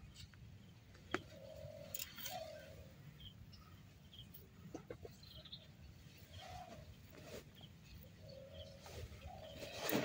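Chickens clucking faintly, a few short calls spread through. A single sharp tap comes about a second in.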